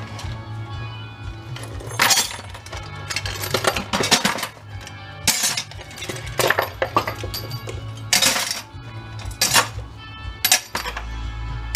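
Light sheet-steel scrap ('tin') parts clanking and clattering as they are dropped by hand into a plastic bucket, several separate drops. Background music plays under them.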